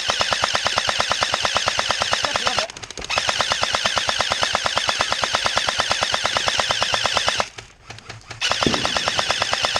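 Airsoft gun firing long full-auto bursts, a fast, even mechanical rattle. It stops briefly twice: just after two and a half seconds, and for about a second near seven and a half seconds.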